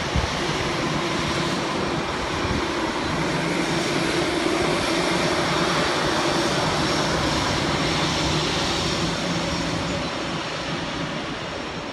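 Airbus A320 jet engines at takeoff power: a steady, loud rush of engine noise with a low, even hum beneath it, easing off slightly near the end.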